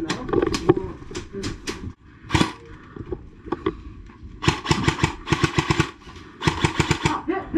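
Paintball marker firing in rapid strings, two bursts of about eight shots a second in the second half, with scattered single pops before them.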